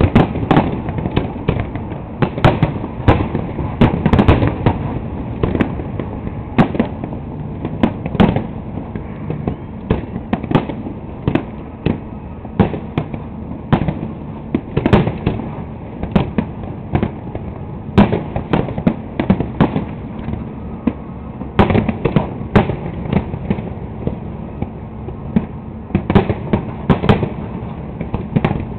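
Fireworks display: a constant, irregular barrage of shell bursts and crackling reports, several a second, with the odd louder boom standing out.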